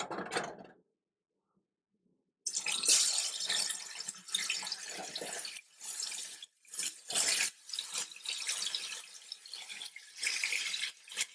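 Seasoned chicken drumsticks sizzling as they are laid into a skillet of hot olive oil. The sizzle starts about two and a half seconds in and surges and dips as more pieces go in.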